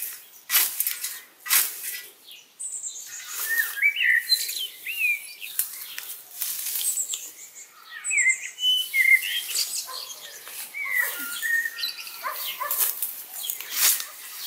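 A scythe swishing through a stand of stinging nettles in repeated short strokes, cutting the plants. Birds chirp and whistle in the background.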